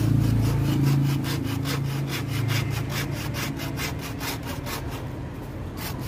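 Small hand saw cutting through a bougainvillea rootstock trunk in quick, even back-and-forth strokes, about four a second. The strokes pause about five seconds in, then a few more follow near the end as the cut is finished.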